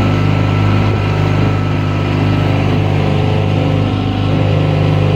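Outboard motor of a small open boat running at a steady cruising speed, a constant, unchanging engine hum.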